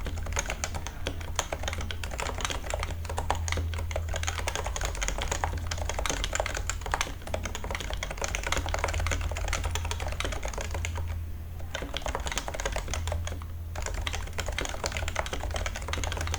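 Rapid, continuous typing on a Topre keyboard with uniform 55 g electrostatic capacitive rubber-dome switches, its keystrokes running in dense runs that break off briefly about eleven seconds in and again a couple of seconds later.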